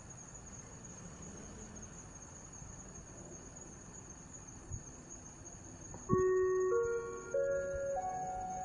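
Steady high insect chirping, then about six seconds in an outdoor disaster-prevention radio loudspeaker starts the 5 p.m. time-signal chime: four clear chime notes, each a step higher than the last, about two-thirds of a second apart.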